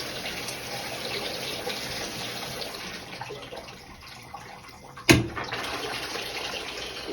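Shower water spraying from a newly fitted shower head into the tub, a steady hiss that eases somewhat partway through. About five seconds in there is a single sharp knock.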